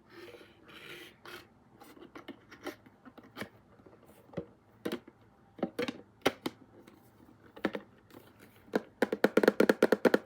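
Handling clicks and knocks of a Funko Pop vinyl figure going back into its cardboard window box, scattered and irregular, then a fast, louder run of taps near the end.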